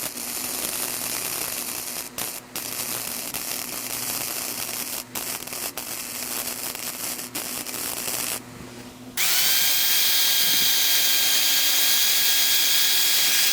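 Flux-core wire-feed welding arc crackling and sizzling on thin 16-gauge exhaust pipe for about eight seconds, with brief breaks in the arc. After a short pause, a steady high machine whine starts and holds.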